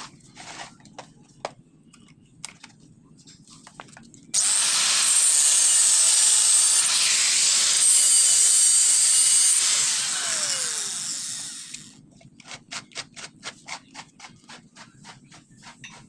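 Electric angle grinder switched on about four seconds in and cutting into metal, a loud harsh grinding for about six seconds, then switched off and spinning down with a falling whine. Light clicks and handling knocks come before it and a quick run of clicks after it.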